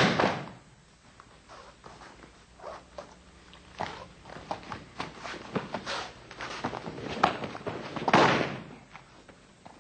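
Feet shuffling and stepping on a mat with scattered light knocks during sambo sparring. A louder heavy thud comes about eight seconds in, as a thrown body lands on the mat.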